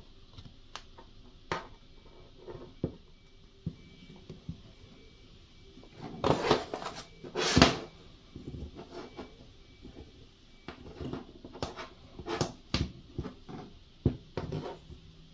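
Handling noises of wooden handle scales being pressed onto a knife tang and metal C-clamps being set over them and tightened: scattered clicks and knocks, with a louder cluster of knocks about six to eight seconds in.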